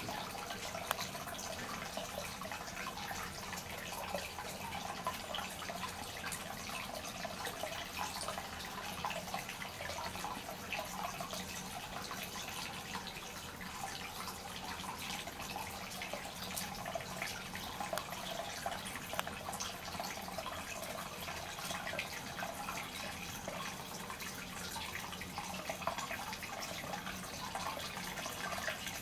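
Water running steadily and splashing into water, with many small drips and splashes.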